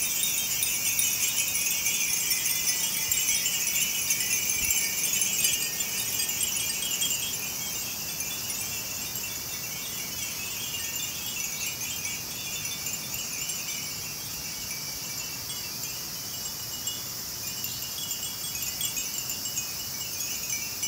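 Many Edo furin, hand-blown glass wind bells, tinkling together in the breeze as their paper strips catch the wind. A dense, high-pitched ringing, busier for the first several seconds and then easing to a softer, steady jingle.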